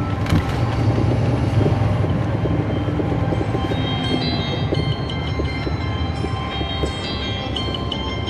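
Caterpillar C13 ACERT diesel engine of a 2009 NABI 416.15 transit bus running, heard from on board, with scattered rattles and clicks from the bus. A thin high tone comes in about four seconds in.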